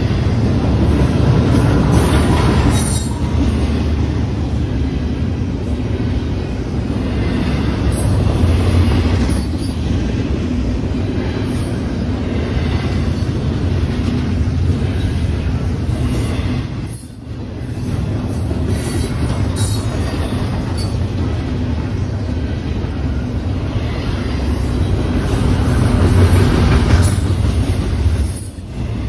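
Double-stack intermodal freight train passing at track speed: a steady rumble of steel wheels on rail with clatter over the joints and occasional short high wheel squeals. The noise dips briefly twice.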